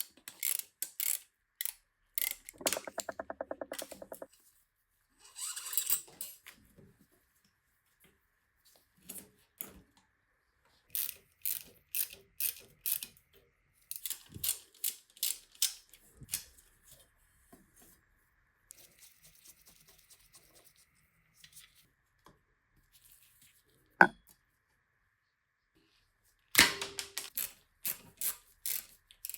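Metal parts and hand tools clicking and clinking as a bicycle is worked on, with a fast run of ratcheting clicks a few seconds in and one sharp knock later on.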